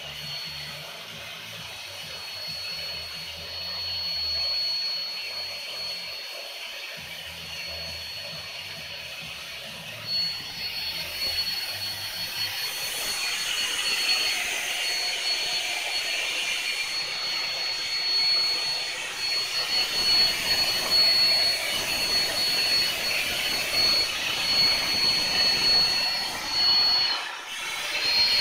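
Vacuum cleaner motor blowing air through a hose into a large inflatable vinyl whale: a steady high whine over rushing air. It gets louder partway through, and near the end it cuts out for a moment and comes straight back.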